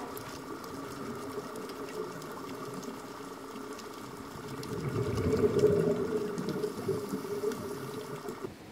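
Muffled underwater rushing and bubbling picked up by a camera below the surface, swelling about five seconds in and cutting off sharply near the end.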